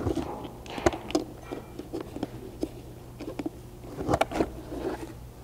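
Hard plastic door trim panel being lifted and shifted on a padded blanket: scattered light knocks and clicks, with a few sharper knocks about a second in and a louder cluster around four seconds.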